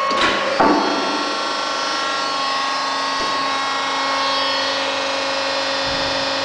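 Hydraulic power unit of a double decoiler running steadily: a motor-driven pump hum with several whining tones. A short clatter of knocks comes less than a second in.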